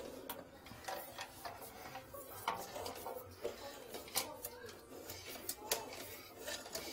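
Irregular light clicks and taps as a pipe inspection camera's push cable is fed by hand into a toilet drain, the stiff cable rattling against its reel case and the fittings.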